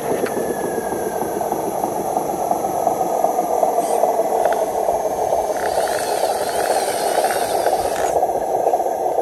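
Radio-controlled model truck's motor and gear drive running steadily as it crawls loaded over rough ground, with a rustling scrape from about six to eight seconds in.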